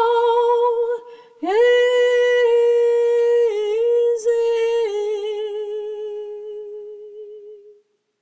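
A woman singing unaccompanied, without words, in a humming voice. She holds a note with vibrato, breathes, then sings a slow phrase that steps down in pitch and fades out near the end.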